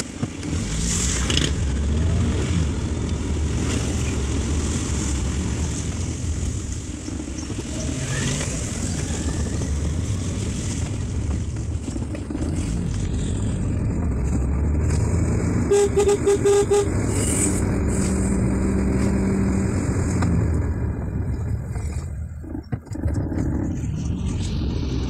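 Engine and tyre noise heard from inside a moving car on a wet road, a steady low rumble. About two-thirds of the way through, a vehicle horn beeps four times in quick succession.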